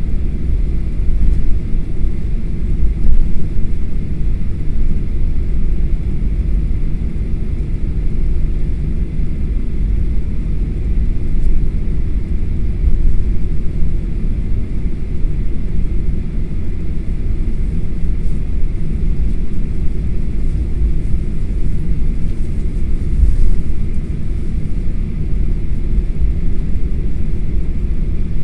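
Cabin noise inside a Boeing 737-800 taxiing after landing: a steady low rumble from the engines at low power and the airframe rolling over the taxiway.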